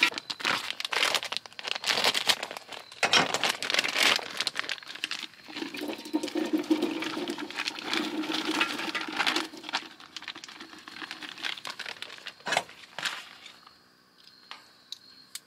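Irregular crinkling, rustling and knocking from handling food and cookware while cooking over a camp burner, dying down over the last couple of seconds.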